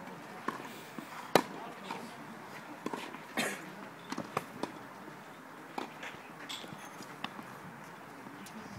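Tennis balls struck by rackets and bouncing on a clay court: sharp pops at irregular intervals through a rally, the loudest about a second and a half in.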